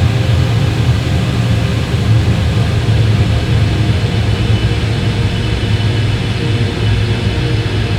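Super-slow ambient drone made by stretching out a heavy shoegaze song: a steady wall of sound, with a deep rumble under many held tones.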